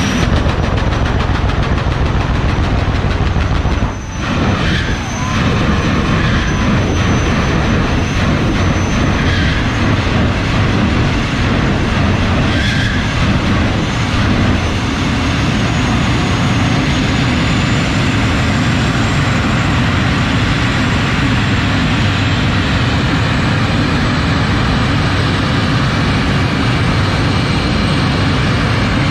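Loud, steady engine rumble of drag racing cars running, with a brief dip about four seconds in.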